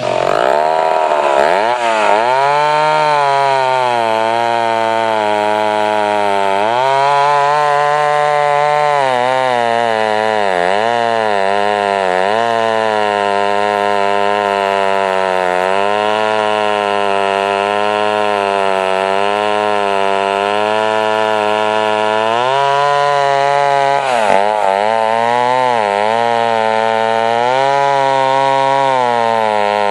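Poulan 62 two-stroke chainsaw engine running, its speed wavering up and down continuously, with two brief sharp drops in speed about ten seconds in and again about twenty-four seconds in.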